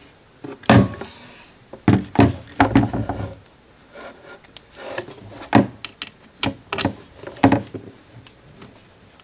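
Metal detachable sling swivel being fitted onto the rear stud of a wooden rifle stock: a string of sharp clicks and knocks, with rubbing as the stock and sling are handled.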